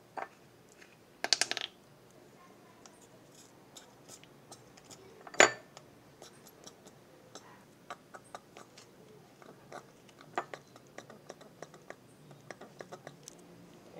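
Small plastic food-colouring bottle being opened and squeezed: a quick run of clicks about a second in, one sharp click about five seconds in, then scattered faint clicks and crackles as the bottle, which is running out of colouring, is squeezed over a glass.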